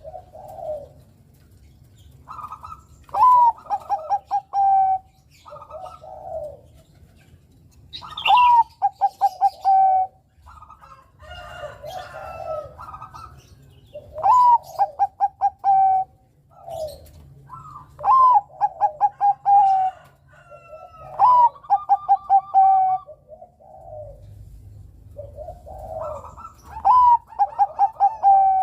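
Bangkok-strain zebra dove (perkutut) cooing its song. It repeats phrases every few seconds, each a rising opening note followed by a fast run of short staccato coos, with softer, lower coos between the phrases.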